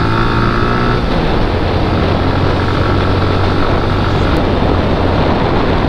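Suzuki Gixxer motorcycle's single-cylinder engine running steadily while riding, under loud wind rush on the camera's microphone. The engine's note stands out clearly for about the first second. After that the wind noise covers most of it, leaving a steady low engine hum underneath.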